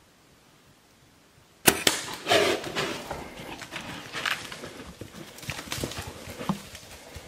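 Bow shot at a black bear: a sharp snap of the bowstring about two seconds in, then the hit bear crashing off through dry leaves and brush, the crackling and thudding fading over the following seconds.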